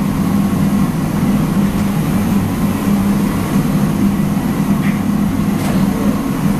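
Steady, loud mechanical drone with a constant low hum, typical of large kitchen machinery such as an exhaust fan or burner blower running; a faint short click about five and a half seconds in.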